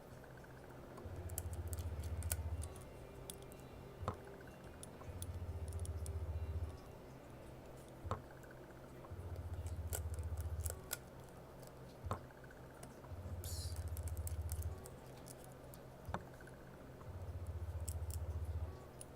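Light scattered clicks and ticks of small tools and parts being handled during phone reassembly, with a low hum that comes on for under two seconds about every four seconds and a sharp click once in each cycle.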